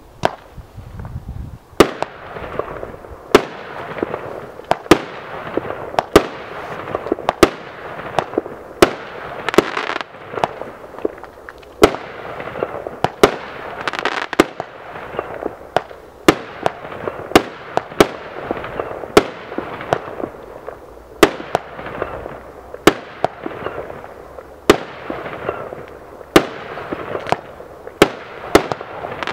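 A Magnolia 49 fireworks battery (multi-shot cake) firing shot after shot, with a sharp bang about once a second and a steady hiss between the bangs.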